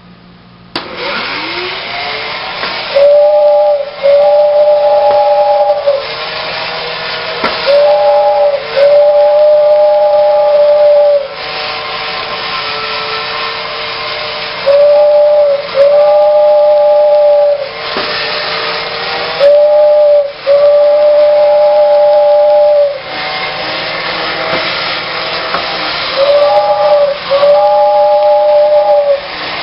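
Modern Toys Overland Express 3140 battery-operated tin toy train running. Its motor starts with a rising whine about a second in, then runs with a steady whir. Every five or six seconds its built-in whistle gives a short toot followed by a longer, breathy two-tone blast.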